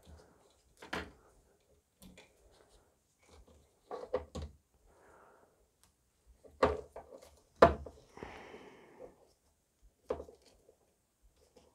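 Handling noises from plastic printer parts: irregular clicks and knocks as a cable drag chain and hotend wiring are worked on by gloved hands, with two louder knocks about a second apart past the middle and a short rustling scrape just after them.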